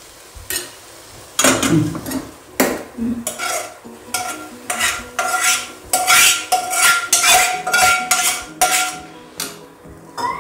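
A metal spoon scraping and clinking against a steel pot and a small iron kadai as hot tempering is scraped from the kadai into the rice and dal. It is a run of separate knocks and scrapes, several per second at times.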